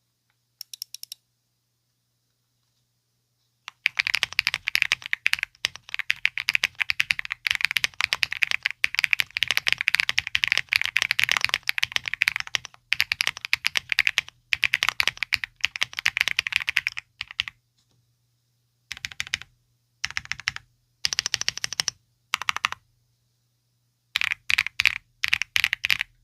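Mechanical keyboard typing on KiiBOOM Topaz heavy linear switches in an aluminium AL65 board with ABS keycaps, a solid clack on each keystroke. A brief tap of keys comes first, then after a pause of about three seconds there are about fourteen seconds of fast, continuous typing, followed by several shorter bursts of keystrokes with pauses between them.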